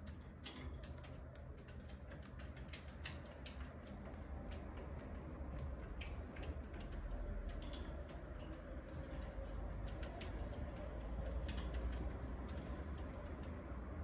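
Irregular light clicks and taps, several a second, from cockatiels' claws and beaks on the wire bars of a cage top, over a low steady rumble.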